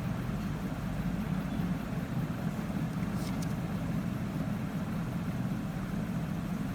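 Steady low hum with a noisy background, unchanging throughout, and a faint click about three seconds in.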